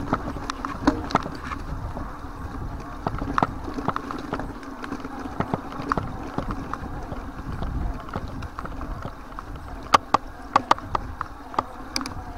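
Mountain bike rolling over a rough dirt and grass trail: irregular sharp rattles and clicks from the bike and its handlebar-mounted gear, with a cluster of louder knocks near the end, over a low wind rumble on the microphone.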